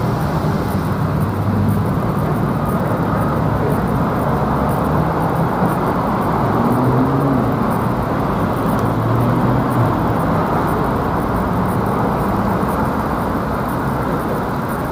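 Steady city road traffic: a continuous wash of engine and tyre noise with no single event standing out.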